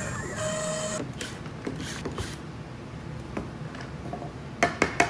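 CNC router spindle, its bit lifted clear of the wood, running and then spinning down to a stop about a second in. After that come light clicks, and near the end a quick run of sharp knocks as the clamps and the board are taken off the spoilboard.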